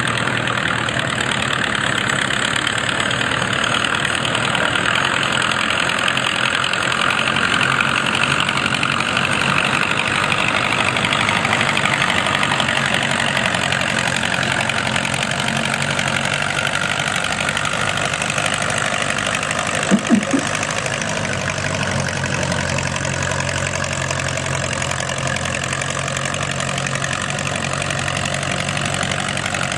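Vintage Ford farm tractor's engine running steadily under load as it drags a weighted transfer sled through the dirt. Two or three quick, loud sharp pulses come about two-thirds of the way through.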